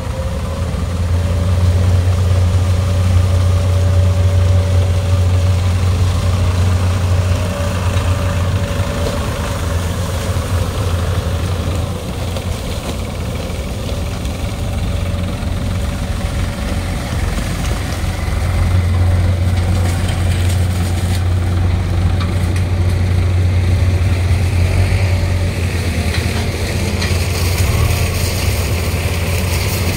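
Diesel engines of a Case sugarcane harvester and a New Holland 3630 tractor running steadily at working speed, with a strong low hum and a thin steady whine above it. The sound eases a little for several seconds midway, then comes back up.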